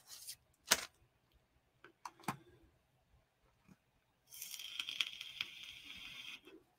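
A few light knocks and clicks as a cardboard knife box and a bag of stickers are set down on a table, the loudest just under a second in. After a pause, a steady high hiss runs for about two seconds.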